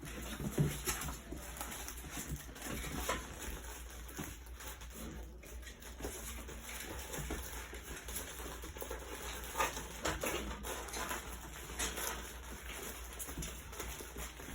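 Four-week-old puppies moving about, with scattered small scuffs and taps and an occasional short, low puppy vocal sound.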